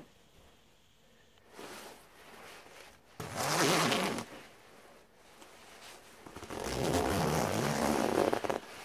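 The front zipper of a glossy nylon down jacket being run twice: a short rasp about three seconds in, then a longer pull of about two seconds near the end as it is zipped up to the collar.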